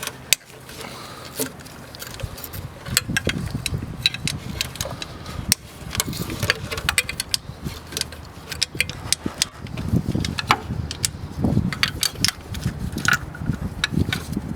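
Hand tools working the thermostat housing bolts loose: a run of irregular sharp metal clicks and clinks of wrench on bolt, with bouts of low rubbing and handling noise.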